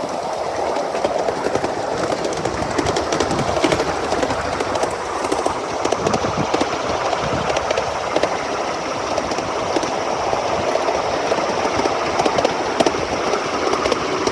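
Miniature ride-on steam locomotive running along the track, heard close from the carriage behind it: a steady rush of steam and running noise, with scattered clicks of the wheels over the rail joints.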